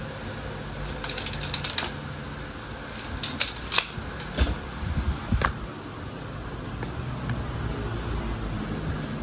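Bursts of rapid clicking and rattling, about a second in and again near three seconds, then a few single knocks, from parts and tools being handled on a scooter, over a steady low hum.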